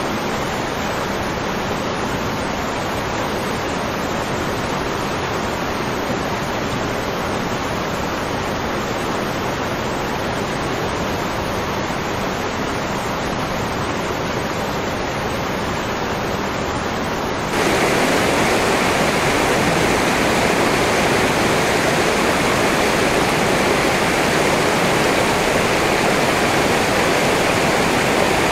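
Steady rushing noise with no distinct events. About two-thirds of the way through it switches suddenly to a louder, fuller rush of a stream flowing over rocks.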